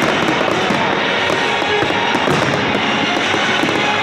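A dense fireworks barrage: many shells bursting and crackling almost continuously, one crack on top of the next. Music plays along underneath.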